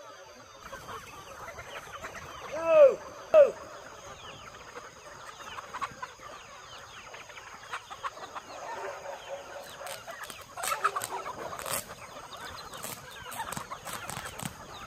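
A large flock of chickens clucking and calling all together, with two loud short squawks about three seconds in and a few sharp noises around ten to twelve seconds in.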